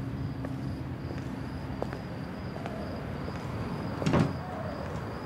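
A door shutting with a single thump about four seconds in, over a low steady background hum and a few faint clicks.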